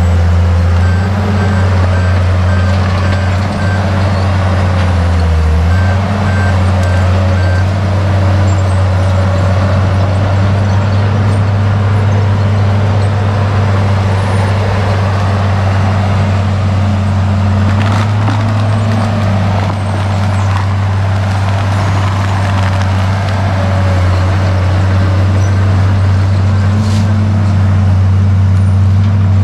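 Case 850K crawler bulldozer's diesel engine running steadily under load as it pushes through the woods, with a few sharp metallic knocks from the machine and its tracks.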